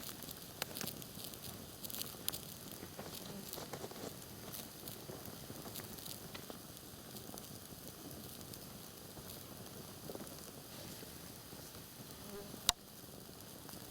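Campfire crackling with scattered sharp pops and one louder pop near the end, over a steady buzz of insects.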